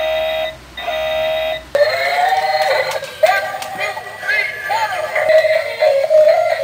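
A battery-operated robot toy beeps in a repeated electronic tone, about three pulses, which stops abruptly under two seconds in. A dancing Super Mario toy then plays a synthesized song with electronic singing.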